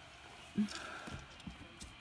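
Faint handling noise: a few light taps and a soft rustle as a cloth doll with a paper tag is turned over in the hands.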